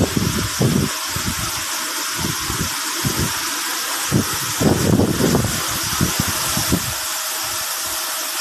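Water gushing out in a steady rushing hiss, with irregular low rumbling bumps under it, heaviest about halfway through.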